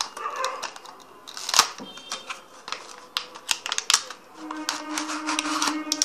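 Cardboard fidget-spinner box being opened by hand and its plastic blister tray pulled out: a run of irregular clicks, taps and rustles of card and plastic.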